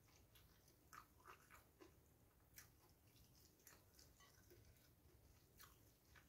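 Very faint chewing with small scattered mouth clicks as a person eats a mouthful of rice and fried egg, over near-silent room tone.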